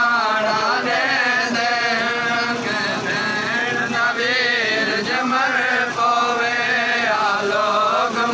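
A group of men chanting a noha together, several voices overlapping, their pitch rising and falling without a break.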